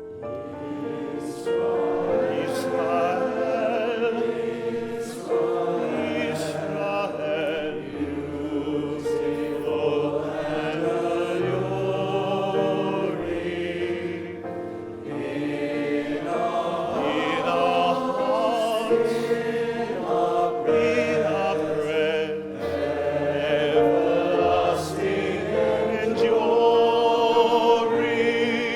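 A choir of amateur voices singing a slow song in long, held notes, with piano accompaniment.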